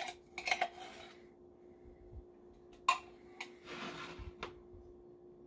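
A spoon and saucepan clinking and clattering a few times as cream of chicken soup and milk go into the pan, with a short scraping noise about four seconds in. A steady low hum runs underneath.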